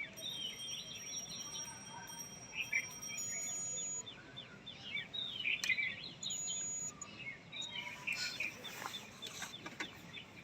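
Birds chirping in the background, many short repeated calls, with a few sharp clicks around the middle and again near the end.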